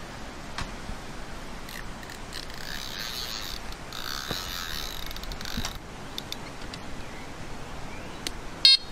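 Carp fishing reel being wound to take up the line, its winding heard in two spells a few seconds in. Near the end comes one short, loud electronic beep from a bite alarm as the rod is set on it.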